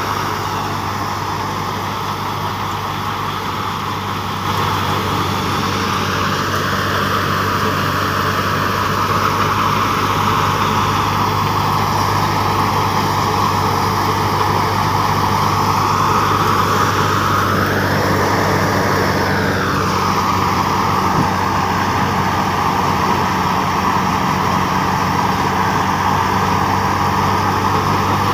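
Tractor-powered wheat thresher running: a steady low engine drone under the thresher's loud high hum. The hum briefly rises in pitch and falls back about two-thirds of the way in.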